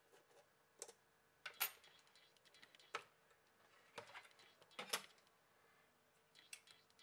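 Faint, scattered clicks and scrapes of a Huawei Y5 II smartphone's plastic frame and parts being pried at with a thin metal blade and handled against a wooden desk, about half a dozen sharp ticks with the loudest near the start and past the middle.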